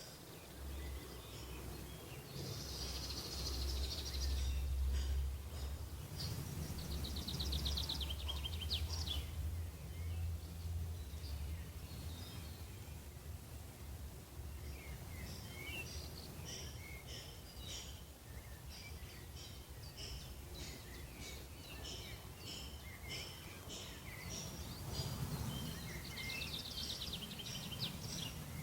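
Songbirds chirping and singing, with a fast trill falling in pitch twice, over a low rumble.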